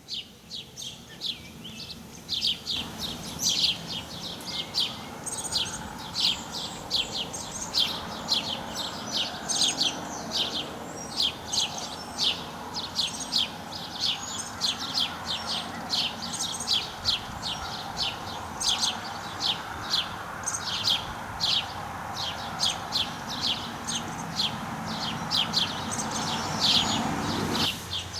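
Birds chirping: a continual run of short, high chirps, several a second. Beneath them a steady rushing noise starts about three seconds in and stops just before the end.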